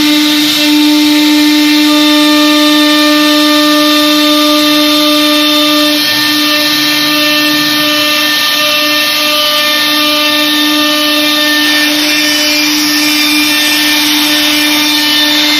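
CNC router spindle running at speed with a steady, even whine while its cutter routes grooves into an MDF board.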